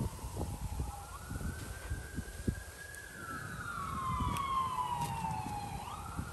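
Emergency-vehicle siren wailing: one tone slowly falls, climbs and holds, falls again for about three seconds, then swoops back up near the end. Low rumbling noise and a few scattered clicks lie underneath.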